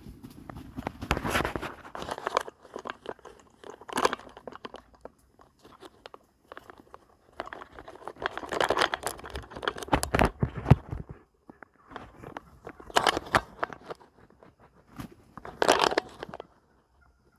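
Irregular bursts of crunching and rustling, about six of them, with short quiet gaps between.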